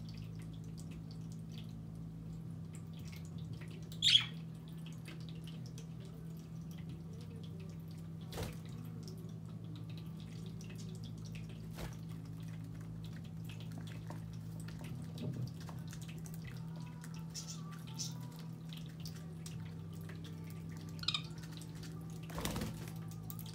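A flower-topped pet drinking fountain trickling water over a steady low pump hum, with scattered light clicks. A few brief budgerigar chirps break in, the loudest about four seconds in and another near the end.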